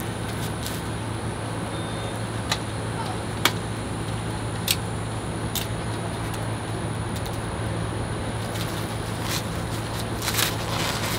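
A steady low mechanical hum under scattered light clicks and taps from hands working on a folding e-bike's frame, with a short clatter near the end.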